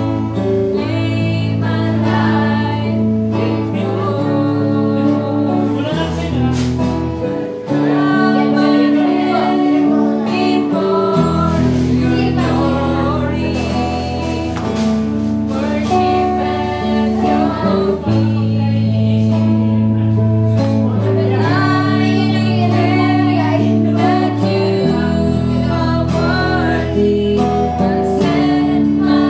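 Live worship band playing: women singing a worship song over acoustic guitar, electric guitar and keyboard. Long, held low notes change every few seconds beneath the voices.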